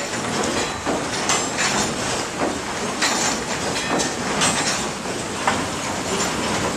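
Water-powered sawmill running as the saw cuts a log into lumber: a steady rushing clatter of machinery with irregular knocks.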